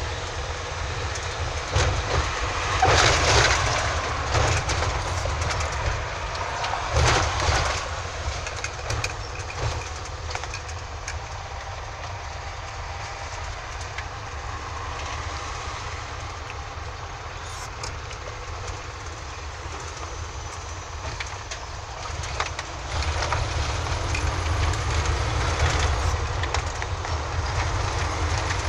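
Road noise heard from inside a moving car: a steady low rumble of engine and tyres, with a few louder surges in the first seconds. It drops to a quieter hum while the car sits in slow traffic, then grows louder again near the end as the car picks up speed.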